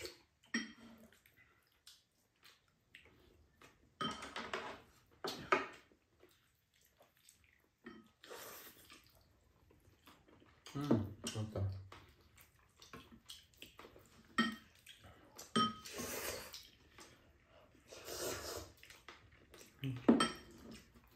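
Two people slurping udon noodles and chewing, in irregular short bursts, with occasional clicks of chopsticks and spoons against bowls and the pan.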